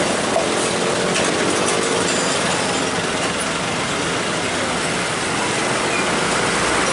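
Road traffic crossing close by: a loaded diesel dump truck's engine passing, with a stream of motorcycle and scooter engines running in a steady din. The truck's engine note is strongest near the start and fades over the first couple of seconds.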